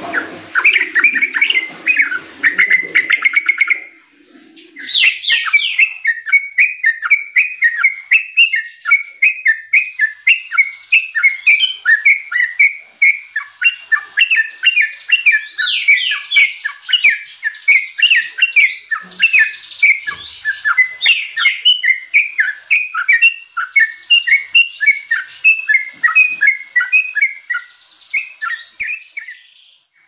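Yellow-vented bulbul (trucuk) singing a long run of rapid, bubbly chattering notes, broken by a short pause about four seconds in.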